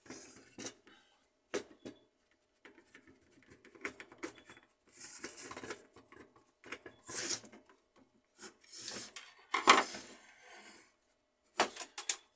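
Hand reassembly of an HP LaserJet 1300 fuser: a screwdriver turning screws into the fuser's plastic frame, with irregular clicks, scrapes and clinks of plastic and small metal parts being handled. The loudest clatter comes about ten seconds in, and a few sharp clicks come near the end.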